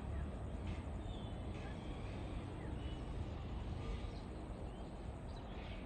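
Steady low background rumble with a few short, high bird chirps scattered through it; no locomotive horn sounds.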